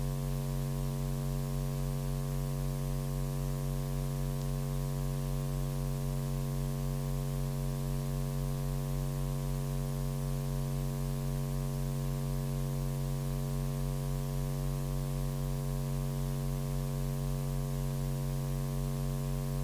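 Steady electrical mains hum with a buzz of overtones, unchanging, from the commentary microphone and sound system left open between announcements.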